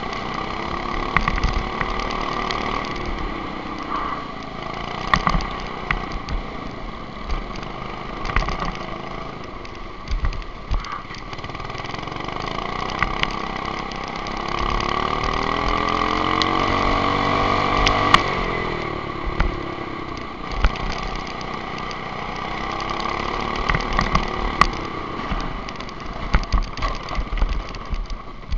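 Go-kart engine heard from a camera mounted on the kart, its pitch climbing steadily under acceleration to a peak about 18 seconds in, then dropping as the throttle comes off. Wind rumble and frequent knocks from the track run under it.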